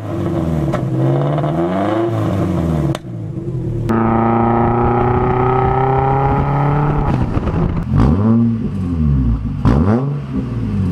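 Turbocharged Subaru Forester engine revving up and down several times, held at high revs for a few seconds in the middle.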